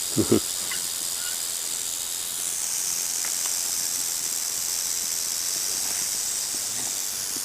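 Timber rattlesnake rattling its tail, a steady high buzz that grows louder about two and a half seconds in: the warning of a disturbed snake. A short thump right at the start.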